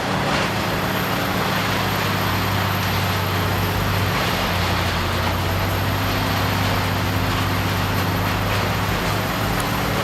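Morbark 1100 wood-waste grinder, driven by a Cat C18 diesel, running steadily: a constant deep engine drone under a broad grinding noise.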